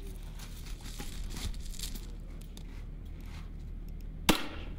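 Light rustling and small clicks of weapons and gear being handled, then one loud, sharp gunshot from a range weapon about four seconds in, ringing on briefly.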